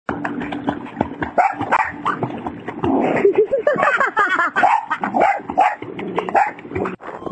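A dog barking and yipping, mixed with whines that rise and fall in pitch.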